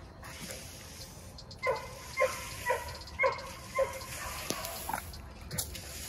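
Pit bull giving six short, high yelping barks, about two a second, starting a couple of seconds in. A couple of sharp knocks follow near the end.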